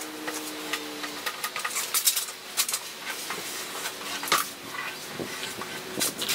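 Hard-edged squeegee squeaking and scraping in many short, irregular strokes as it is pressed along wet rail tape on a board's rail, squeezing the water out to stick the tape down.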